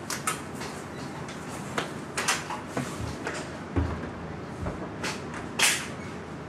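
Scattered soft clicks and knocks with a few dull thumps and two brief swishes, from a baby safety gate and a door being opened and shut.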